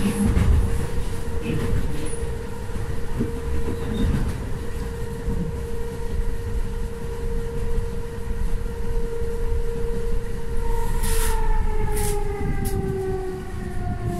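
ÖBB class 4020 electric multiple unit heard from inside the passenger car: a steady rumble of wheels on track under a steady whine. About ten seconds in the whine starts falling in pitch as the train slows, and a few sharp clicks come with it.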